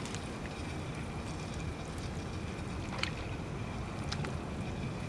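Wind buffeting the microphone in a steady low rumble, with a faint steady high whine and a few short clicks about three and four seconds in.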